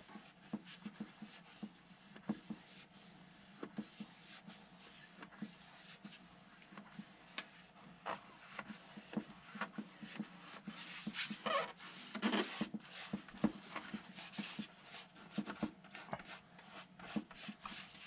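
Gloved hands rubbing and pressing a vinyl decal down onto a model airplane's plastic-film-covered fuselage: soft, irregular rubbing strokes with small taps and crinkles. The rubbing is denser and louder about twelve seconds in.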